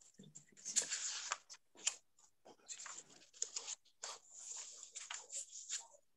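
Irregular rustling and scraping handling noises, with a few short clicks, as a person moves and reaches for things near the microphone.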